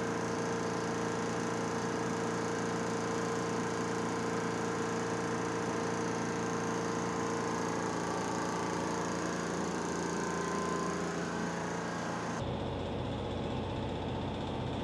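A workshop machine's motor running with a steady hum. About twelve seconds in the sound shifts abruptly to a duller, lower drone.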